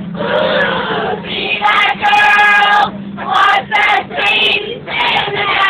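A group of people singing together inside a train carriage, in sung phrases broken by short pauses, over a steady low hum.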